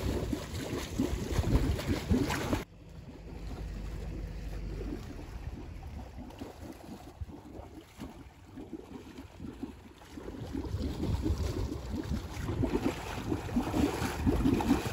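Water rushing and splashing through a turning steel-drum waterwheel in a shallow creek, with wind buffeting the microphone. The noise drops off suddenly about two and a half seconds in and builds again in the last few seconds.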